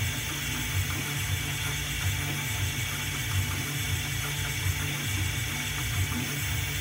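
Roland MDX-40 benchtop CNC mill running, its spindle driving a tapered ball-end bit through jeweler's wax on the fourth-axis rotary unit. A steady mechanical whir with an uneven low pulsing.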